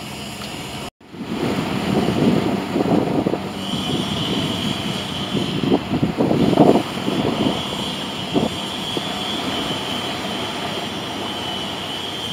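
Airbus A320 airliner on final approach, its jet engines rumbling with a steady high whine that comes in about three seconds in. The sound drops out briefly about a second in, and the rumble swells unevenly for the next few seconds.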